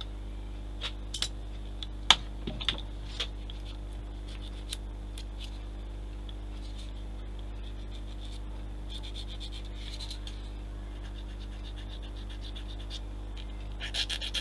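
Small plastic model kit parts being handled and fitted: a few sharp clicks and taps in the first few seconds, then light scratching around ten seconds in and again near the end.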